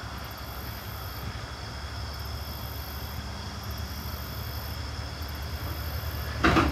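Steady low rumble of an idling engine, with insects buzzing in the background and a single loud clunk near the end.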